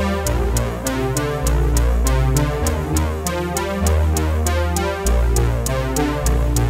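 Electronic background music: a synthesizer bass line under a steady beat with regular sharp ticks.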